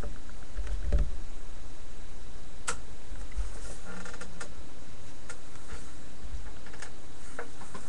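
Scattered light clicks and taps of trading cards and their packaging being handled, over a steady low background hum.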